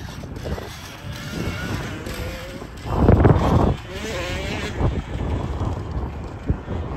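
Electric motor of a 2018 Alta Redshift MXR electric dirt bike whining under way, its pitch rising and falling with speed, over wind noise on the microphone. There is a loud rush of noise about three seconds in.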